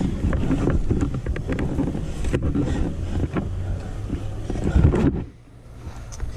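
Footsteps and knocks on corrugated roofing sheets as someone walks across a roof, with wind buffeting the microphone. The knocking and rumble drop away suddenly about five seconds in, leaving it quieter.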